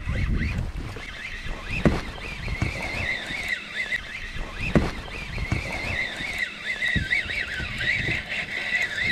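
Wind rumbling on the microphone aboard a small fishing boat, with a few sharp knocks on the boat. From about three seconds in there is a high, wavering whine.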